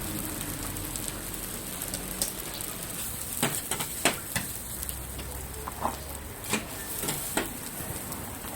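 Rice frying on a hot iron teppanyaki griddle, a steady sizzle under a low hum. About halfway through come several sharp clicks of the spatula against the metal plate.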